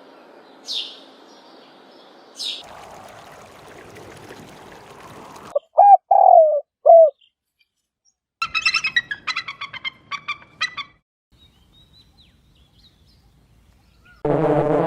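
Birds calling in short separate bursts: two brief high sweeping calls, then three loud low notes, then a rapid run of chirps. Music starts near the end.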